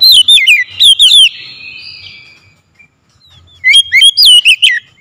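Oriental magpie-robin singing loudly: a quick phrase of sharp, sweeping whistled notes at the start, then a second phrase of similar notes near the end, with a short pause between.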